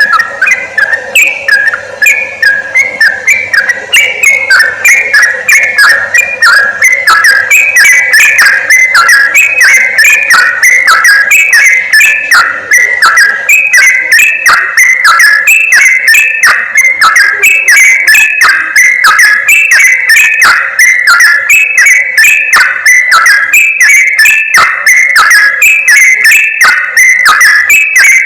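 Yellow-vented bulbul (trucukan) lure recording: a dense, unbroken run of quick bubbling chirps around the same pitch, several notes a second, as if from a flock of bulbuls calling together.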